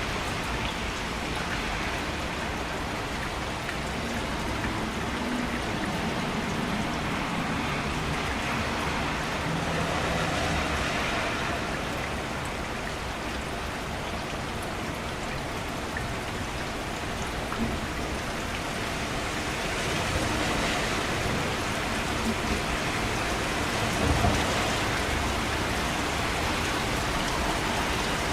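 Steady rain falling on surfaces, an even hiss with a few slightly louder splashes or drops now and then.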